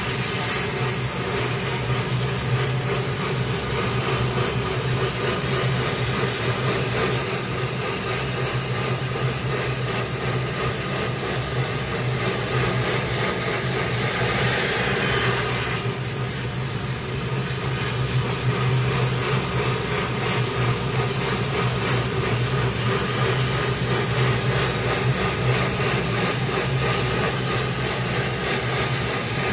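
Gas welding torch flame hissing steadily while welding a steel pipe joint with filler rod, over a steady low hum. The hiss thins briefly about halfway through, then carries on as before.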